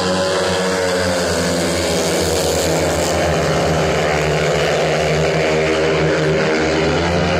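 A pack of four speedway motorcycles, each with a 500 cc single-cylinder methanol engine, racing flat out through a bend. Their engine notes overlap in a loud, continuous drone that drifts up and down in pitch.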